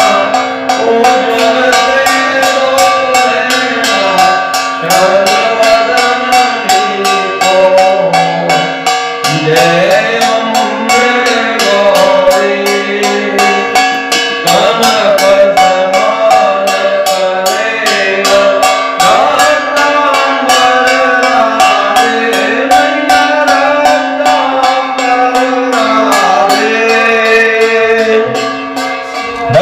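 Hindu aarti devotional singing with a steady accompanying note, kept in time by a hand-held metal gong struck with a stick at about three beats a second.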